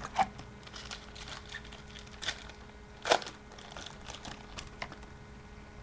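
Foil trading-card pack wrapper crinkling and crackling as it is pulled from the box and opened by hand. The short crackles come at irregular moments, and the sharpest is about three seconds in.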